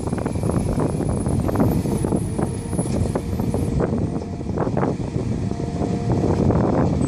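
Heavy diesel engines of a Caterpillar 345 hydraulic excavator and a Mercedes-Benz Actros dump truck running steadily during loading, with irregular knocks and clatter of rock. A faint steady whine comes in past the middle.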